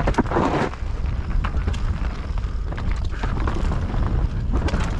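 YT Capra enduro mountain bike descending a loose, stony dirt trail: steady wind rumble on the action camera's microphone, with scattered clicks and knocks from the tyres on gravel and the bike rattling over the bumps.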